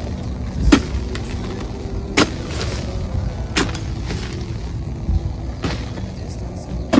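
Oil palm harvesting chisel (dodos) on a long pole chopping into the frond and bunch stalks of a low oil palm: sharp, separate strikes about every second and a half.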